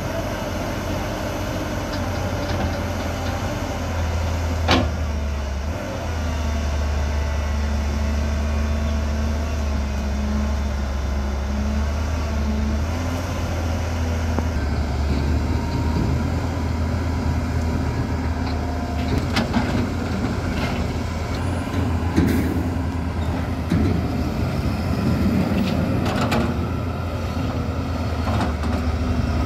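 Diesel engine of a JCB 380 tracked excavator running steadily as it digs and loads, its low drone rising and easing a little as the work goes on, with a few sharp knocks scattered through.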